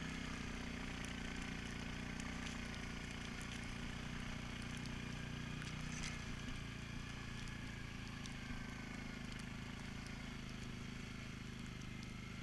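Suzuki King Quad 750 ATV's single-cylinder engine running steadily as the tracked quad rides along a snowy trail, its pitch dipping slightly about halfway through. Scattered faint clicks ride over it.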